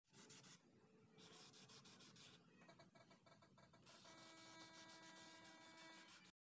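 Waterproof silicon carbide sandpaper rubbed back and forth by hand over the wet plastic body panel of a Honda Click 125i scooter, faint, quick repeated strokes, wet-sanding out a scratch. A faint steady hum joins in from about four seconds.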